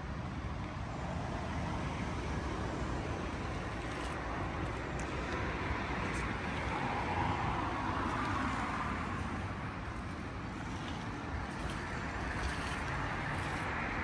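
Steady hum of distant road traffic, swelling slightly about halfway through.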